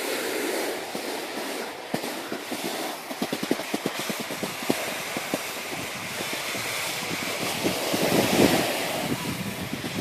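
Sliding over hard-packed snow: a steady scraping hiss, broken by a run of quick clattering ticks from about three to five and a half seconds in as edges chatter over the crust.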